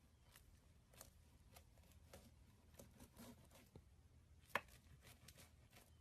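Slime being squeezed and stretched by hand, making faint, irregular sticky clicks and pops, with one louder pop about four and a half seconds in.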